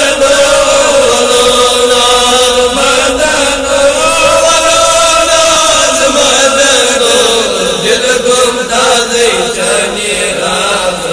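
Men's voices chanting a Kashmiri naat together, drawing out one long held note that rises a little near the middle and then falls away.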